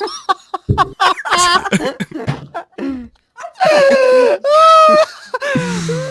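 People laughing hysterically: choppy bursts of laughter at first, then, from a little past halfway, long high-pitched wheezing squeals of laughter, each drawn out for about a second.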